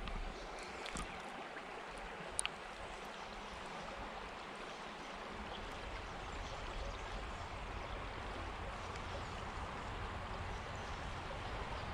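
River shallows trickling and gurgling around a camera held at the water's surface, with one sharp click about two seconds in. About five seconds in the sound turns to a steady muffled underwater rumble as the microphone goes under.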